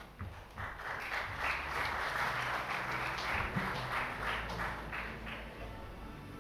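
Audience applauding: clapping swells about half a second in, holds for some four seconds, then fades out near the end.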